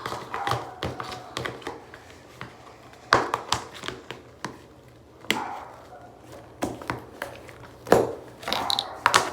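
Hands working homemade slime and its containers on a table: irregular clicks, taps and crackly squishes, a few of them sharper knocks.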